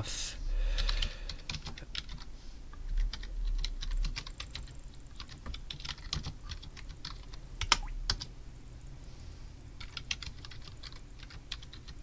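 Typing on a computer keyboard: irregular runs of key clicks, with a couple of heavier strokes about two-thirds through, a short pause, then a last quick run of keystrokes.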